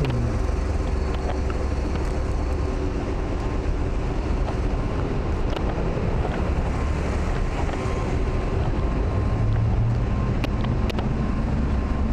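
City street traffic ambience: a steady low rumble of vehicles, with one engine's hum growing louder about nine seconds in.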